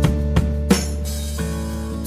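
Background music: plucked guitar notes over a sustained bass line.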